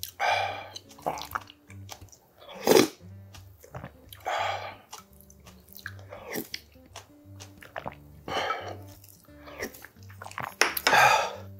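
Slurping capsosiphon seaweed broth off a wooden spoon and chewing seafood udon: about five slurps a couple of seconds apart, the loudest about three seconds in and near the end, with small clicks and mouth sounds between them.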